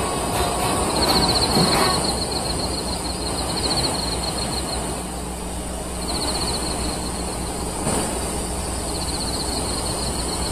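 Steady night-time outdoor ambience with insects chirping, a high, rapidly pulsing trill that comes and goes in several spells.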